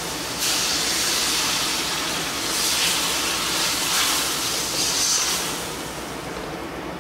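White wine hitting a pan of hot sofrito, hissing and sizzling loudly as it goes in. The sizzle swells several times as the sauce is stirred with a wooden spoon, then dies down near the end.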